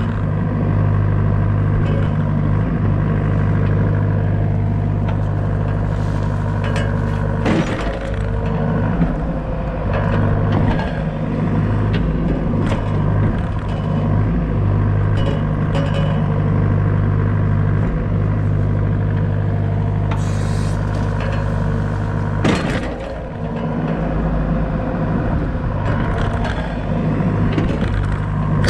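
Doosan DX63 mini excavator working, its diesel engine running steadily at high idle. Sudden metallic clanks and scrapes break in a few times, loudest about a quarter of the way in and again about three quarters of the way in.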